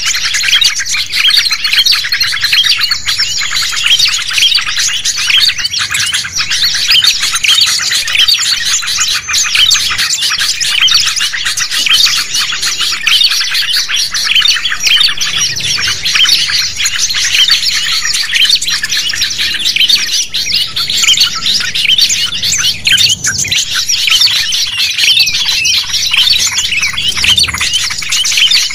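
A dense, unbroken chorus of many small songbirds chirping and twittering rapidly all at once: a mixed-species bird-lure (suara pikat) recording, played to draw wild birds in.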